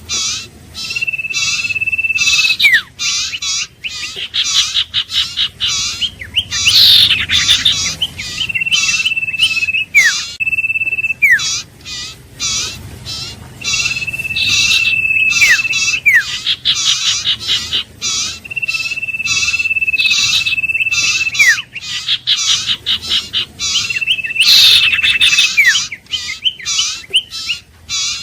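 Iora song: about six long, steady, high whistles, each held for a second or two and ending in a quick downward slur, over a fast, continuous run of high chirps.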